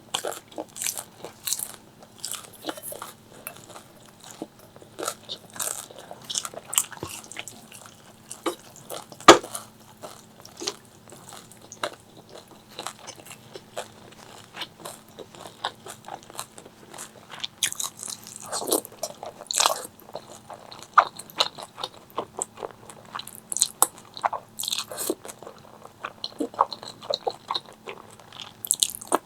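Close-miked eating: crunchy bites and chewing, many short irregular crackles, with one sharp louder crunch about nine seconds in.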